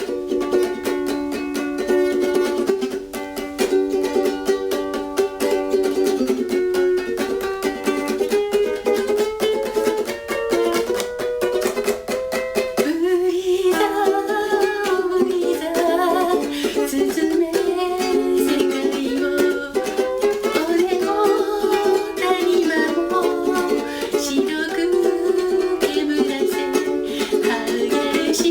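Ukulele strummed and played alone for about the first half. Then a voice comes in singing over it, with the ukulele accompanying.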